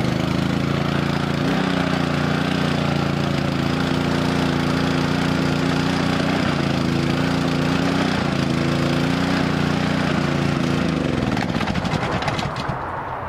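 Small gasoline engine on a pressure washer running at a steady speed, with no water going through the pump. It is shut off near the end, its speed falling away as it stops.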